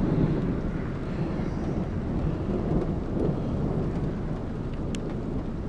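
Thunderstorm wind buffeting the microphone: a low, steady rumble.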